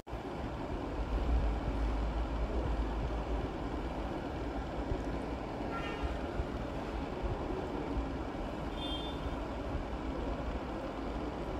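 Chef's knife chopping a peeled onion finely on a plastic cutting board, the knocks of the blade on the board set against a steady low mechanical rumble.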